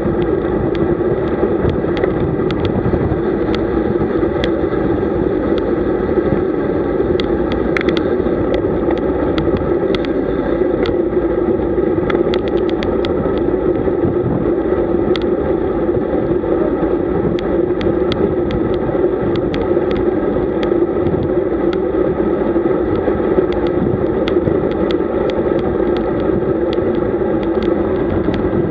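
Steady wind and road noise from a road bike riding along, buffeting the camera's microphone, with frequent small clicks throughout.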